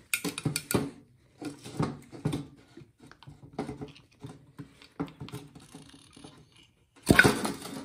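Short clinks, scrapes and glove rustles of metal engine parts being handled as the piston is worked out of the cylinder of a Honda EU2000i generator engine, with a louder burst of clatter about seven seconds in.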